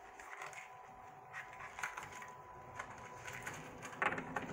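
Small ammunition boxes and .22 rimfire cartridges being handled on a wooden table: soft rustling and light clicks, with a short run of louder clicks and knocks about four seconds in.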